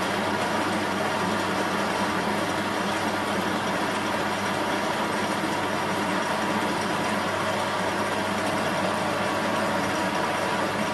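Bench metal lathe running steadily under load, its tool taking a turning cut along a forged steel drag link and curling off chips. The sound is even throughout, a fixed mechanical tone over a steady hiss.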